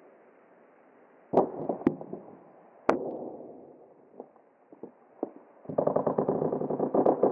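Clear plastic bottle crushed under a heavy work boot: sharp cracks of the plastic giving way, twice about a second and a half in and again louder near three seconds, then a few light clicks, then a dense run of crackling and squeaking as the boot grinds down on it near the end.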